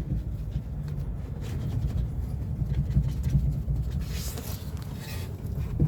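Faint knocks from the front stabilizer bar of a 1996–2000 Honda Civic as the suspension is worked, over a low rumble; the stabilizer bar bushing is burst, a cause of the "toque, toque, toque" knocking in the front suspension.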